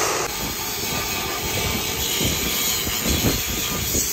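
An abrasive chop saw cutting steel tubing, its steady whine cutting off a fraction of a second in. After that, wind buffeting the microphone with a low, gusty rumble.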